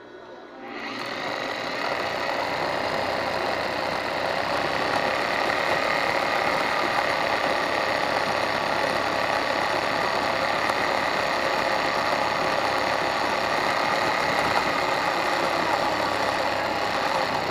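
Electric sewing machine running steadily at speed, starting just under a second in and stopping near the end.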